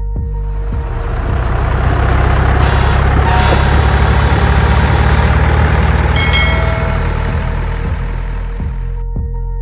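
Truck engine sound over background music, swelling in about a second in and fading out near the end, with a brief hiss and whistle in the middle.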